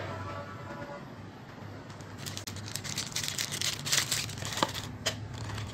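Thin clear plastic bag crinkling as it is handled, in a flurry of crackles through the middle of the stretch, with a couple of sharp clicks near the end.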